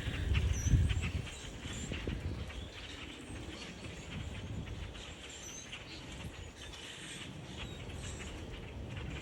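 Small birds chirping: short high cheeps scattered through, over steady rustling and pattering. A low thump about a second in is the loudest sound.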